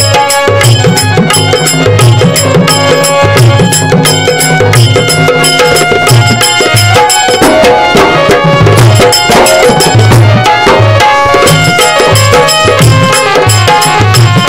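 Instrumental Marathi powada accompaniment: a hand drum beating a steady rhythm under held melodic notes.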